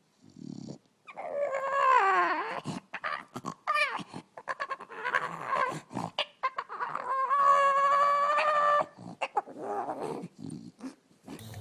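A dog vocalizing in a run of drawn-out, wavering whines and howls. The first call slides down in pitch, and about seven seconds in one long steady howl is held for nearly two seconds, with short sharp clicks between the calls.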